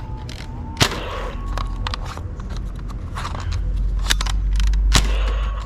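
Toy gun being worked, giving several sharp clicks or shots, the strongest about a second in and near the end, over a steady low hum.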